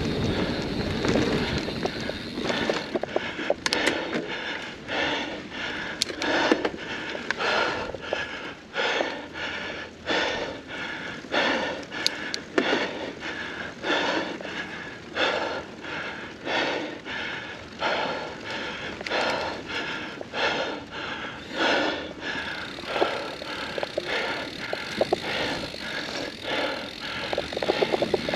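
A mountain biker breathing hard and rhythmically, a little more than one breath a second, from the effort of a steep climb. Beneath it is the steady rolling noise of the bike on the trail.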